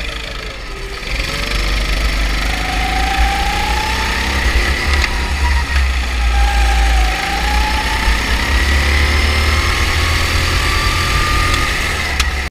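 Go-kart engine heard from the driver's seat, its note rising and falling with the throttle through the corners: it drops about a second in, climbs for several seconds, dips again around the middle, then climbs again near the end. Heavy wind rumble on the microphone underneath.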